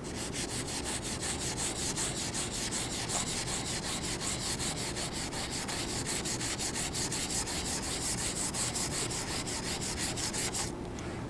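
Wet sanding of an aluminum beam with 320-grit silicon carbide abrasive paper soaked in mild phosphoric acid conditioner: rapid back-and-forth rubbing strokes in an even rhythm, which stop shortly before the end. This is the wet-abrading step of surface preparation for bonding a strain gauge.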